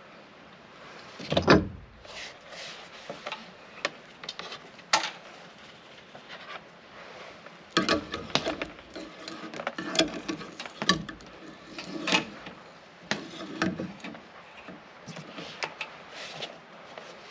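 Scattered knocks, clicks and clatter of Starlink pole-mount hardware being handled and fitted. There is one heavy thump about a second and a half in, and the handling is busier from about eight to fourteen seconds.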